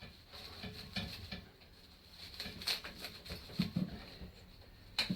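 Light, irregular metal clicks, taps and scrapes as a motorcycle's front exhaust pipe is wiggled and worked loose from the cylinder, with a couple of slightly heavier knocks about three and a half seconds in.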